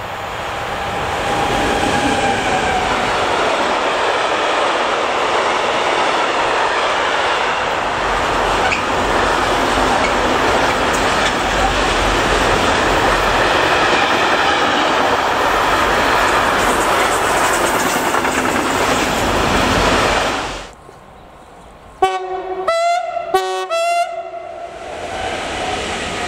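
Freight train passing close by behind an electric locomotive: a long, steady rolling noise of intermodal wagons carrying lorry trailers over the rails, cut off suddenly about twenty seconds in. Then a train horn sounds in a few short blasts, and the running noise of an approaching train rises near the end.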